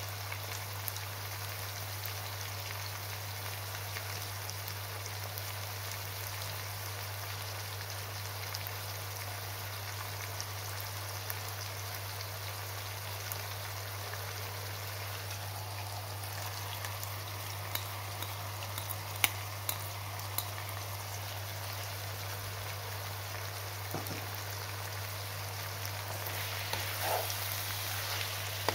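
Lamb liver, onions and garlic sizzling in oil in a frying pan: a steady fine crackle with a few sharp pops. Near the end the pan is stirred and the sizzle gets louder, with scraping through the food.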